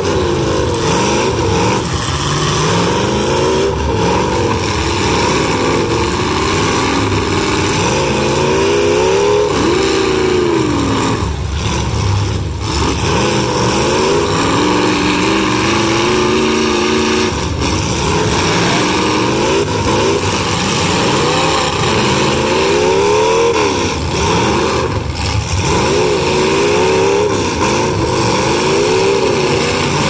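Several demolition derby cars' engines revving up and falling back over and over, their pitches overlapping, as the cars push and ram one another.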